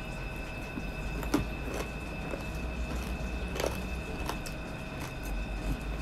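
Close mouth sounds of someone eating crispy pata, deep-fried pork knuckle, by hand: chewing with a few short sharp clicks, the loudest about a second in. A steady low hum and a thin steady high tone run underneath.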